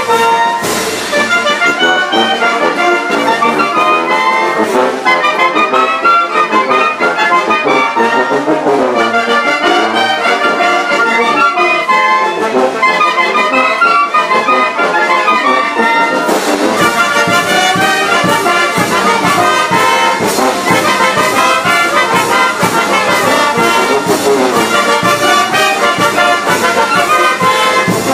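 Live brass band playing a lively dance tune, brass carrying the melody. A little past halfway, drums and bass come in with a steady beat.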